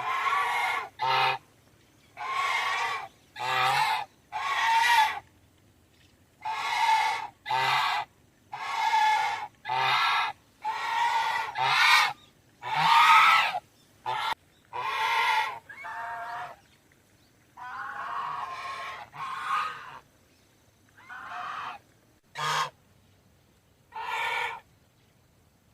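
Goose honking: a long series of separate honks, each under about a second, with short quiet gaps between them.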